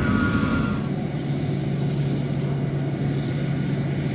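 Jet airliner engine noise: a steady roar with a high whine that fades out in the first second, then a steady low drone.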